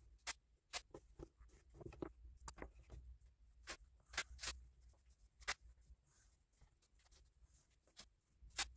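Pen working on the paper page of a planner: scattered sharp clicks and taps, about eight of them, with faint scratching between.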